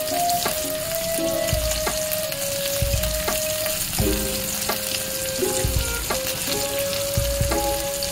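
Sliced onions, green chillies and capsicum sizzling in hot oil in a wok, a steady frying hiss as the vegetables sauté.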